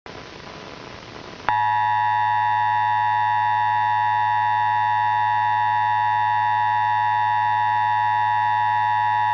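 Emergency Alert System attention signal: the two-tone alarm of 853 and 960 Hz. It comes in abruptly about a second and a half in over a steady hiss, holds loud and unchanging for about eight seconds, and cuts off at the end.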